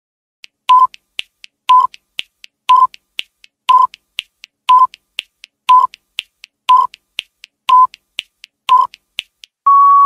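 Countdown timer sound effect: a sharp tick once a second, with a softer, higher click halfway between each pair, ending in a steady beep as the timer reaches zero.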